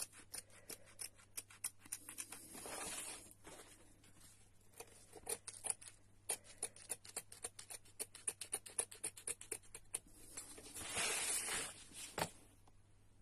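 Scissors snipping through appliqué fabric close to the stitching, a quick run of short snips about three or four a second, twice broken by a longer rustle.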